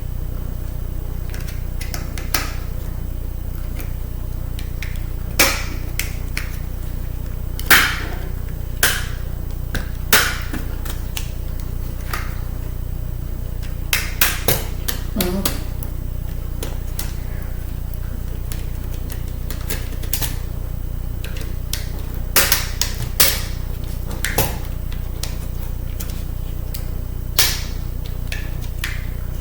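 Scattered sharp clicks and taps of hand tools and small metal parts as a laptop CD drive is unscrewed and pried apart, about a dozen at irregular intervals, several in quick clusters. A steady low hum runs underneath.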